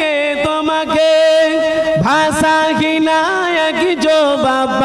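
A man singing a Bengali Islamic devotional song, drawing out long held notes with no clear words. A new phrase starts with an upward swoop about two seconds in.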